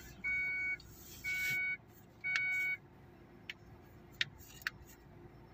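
A vehicle's electronic warning beeper sounding a two-tone beep, each beep about half a second long and repeating about once a second, stopping about three seconds in. A few faint clicks follow.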